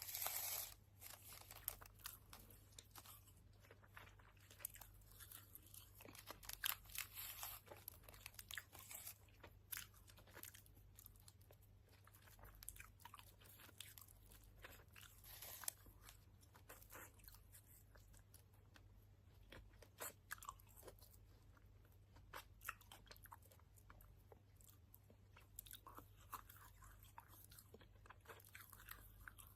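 A person chewing sour-coated gummy candy with the mouth open, with faint, irregular wet smacks and clicks of the lips and tongue.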